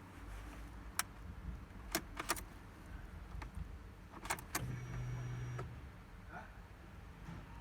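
Car keys jangling and clicking at the ignition, with several sharp clicks scattered through and a brief low hum lasting about a second just past halfway, just before an attempt to start the engine.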